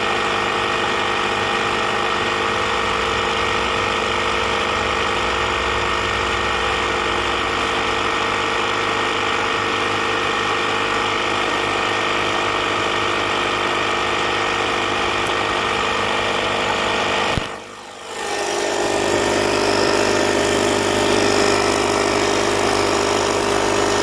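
Small plug-in electric air pump running steadily, with a mechanical hum, while inflating a leaking tractor rear tire. It cuts out briefly about three-quarters of the way through and resumes slightly louder.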